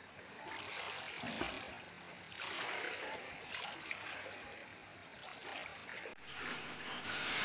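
Pool water splashing as a swimmer strokes through it, in repeated washes about a second apart.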